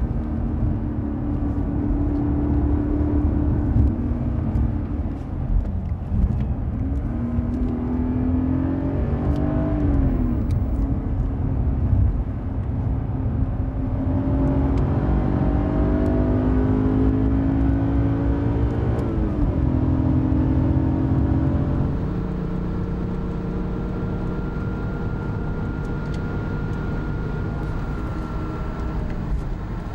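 BMW M5 engine running under way, its pitch falling and rising several times as it revs and changes speed, then holding steadier and a little quieter for the last third, with a faint high whine over it.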